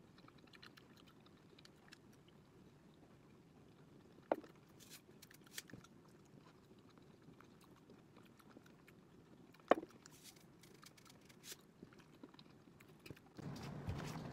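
Faint sounds of someone eating a hard-boiled egg, with small clicks and two sharp clicks, about four seconds in and near ten seconds. Near the end a louder steady room noise starts.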